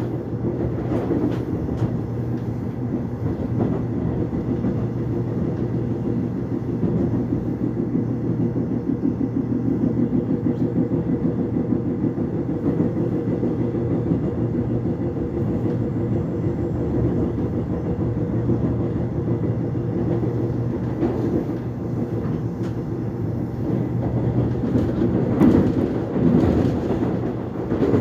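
Subway train running between stations, heard from inside the carriage: a steady rumble of wheels on the rails with a continuous motor hum. It swells with louder rattling a few times near the end.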